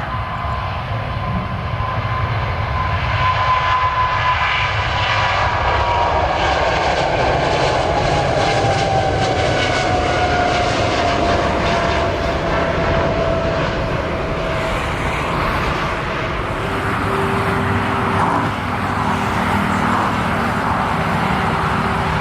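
Jet airliner passing by, a steady loud engine rumble with the engines' whine sliding down in pitch as the aircraft goes past.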